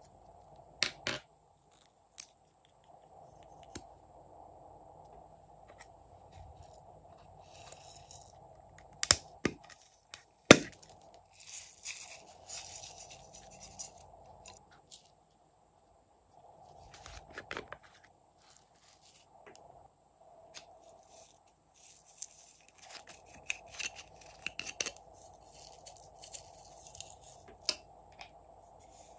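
Sequins and glitter rattling as they are shaken and sprinkled from small plastic containers onto slime, with scattered clicks and knocks as the containers and their caps are handled. Two sharp knocks about a third of the way in are the loudest sounds.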